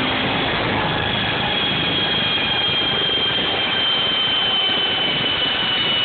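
Rebuilt Corsa engine and front wheels spinning on a rolling-road dyno just after a full-throttle pull: a loud, steady rush with a high whine that slowly falls in pitch as the car winds down.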